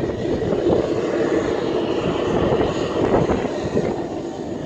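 Jet airliner engines: a steady rushing noise with a faint high whine in the middle.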